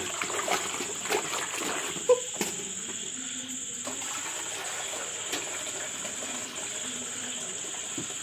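Water sloshing and splashing in an aluminium pot as snail meat is washed by hand and the water is tipped off, with one sharp knock about two seconds in. Crickets chirr steadily behind it.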